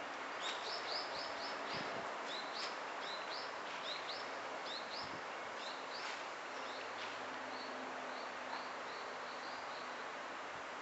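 A small bird chirping repeatedly, short high notes coming a few per second and thinning out near the end, over a steady outdoor hiss.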